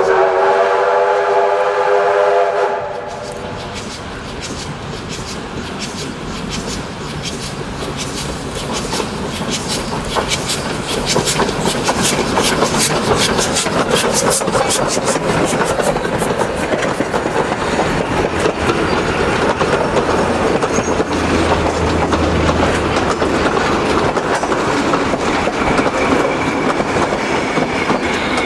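Oil-burning J class 2-8-0 steam locomotive sounding one whistle blast of about three seconds as it approaches, then passing close by with a quick run of sharp exhaust beats. Its passenger carriages follow, wheels clattering over the rail joints.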